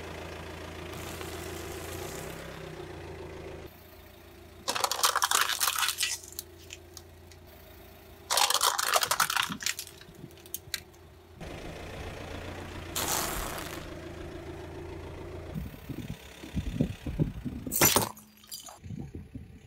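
A car's tyre rolling slowly over and crushing brittle objects, a stack of Oreo cookies among them, with loud crackling crunches over the steady hum of the idling engine. The crunching comes in four separate spells with quieter engine hum between, the last a run of sharp cracks.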